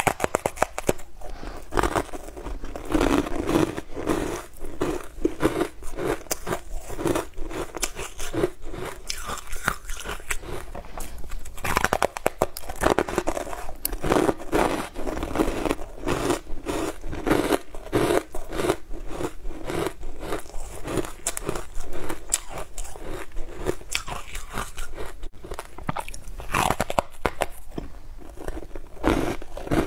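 Close-miked crunching bites and chewing of a frozen purple treat: a dense, uneven run of crisp crunches and crackles.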